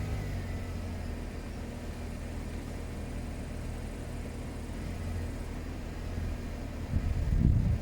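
Chery Tiggo 7 Pro running with a steady low hum, recorded to show a noisy coolant water pump, which the owner takes for a fault. A louder low rumble comes in near the end.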